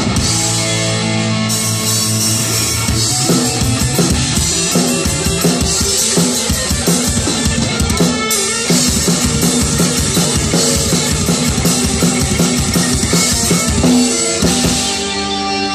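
Thrash metal band playing an instrumental passage live: fast, driving drum kit with bass drum and snare under electric guitars and bass guitar.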